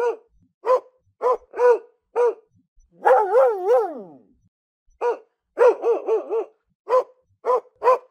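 Dog barking in short single barks, about two a second. About three seconds in comes a longer wavering cry that rises and falls three times and then slides down in pitch, followed after a brief pause by a quick run of barks and more single barks.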